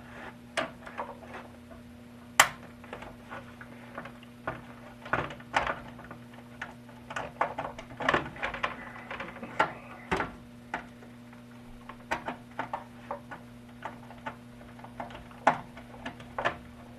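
Irregular clicks and knocks of a screwdriver and hard plastic parts being handled while a Big Mouth Billy Bass is taken apart, over a faint steady low hum. The sharpest click comes a little over two seconds in.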